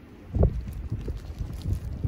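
Strong storm wind buffeting the phone's microphone in irregular low gusts, hardest about half a second in.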